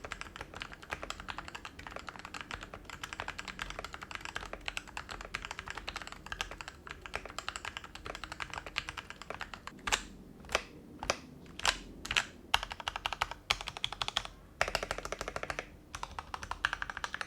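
Typing test on a budget Rexus Daiva mechanical keyboard with Outemu switches, just modded: switches lubed with Krytox 205g0, springs with 105g0, stabilizers re-tuned and a dampener added in the case bottom to cut hollowness and spring ping. Fast, steady key clacking, with a handful of louder single strokes about ten to thirteen seconds in before quick typing resumes.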